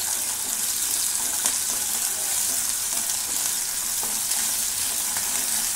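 Sliced onions and ginger-garlic paste sizzling steadily in hot oil in a nonstick kadai as they are sautéed, stirred with a spatula that clicks against the pan a few times.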